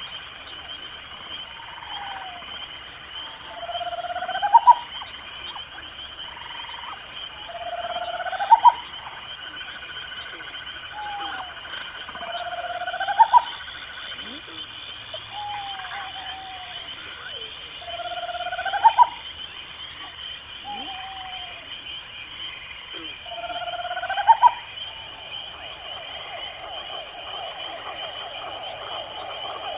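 Night chorus of crickets trilling steadily in a high, continuous band, with faint regular ticking above it. Through it, an animal gives a short rising call about every two seconds, and a buzzy trill joins near the end.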